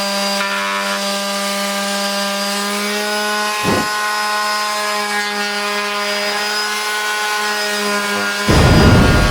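TackLife PMS02B electric mouse detail sander running with a steady buzzing hum. There is a brief thump a little before halfway, and near the end a louder rasping as the pad is pressed against the work.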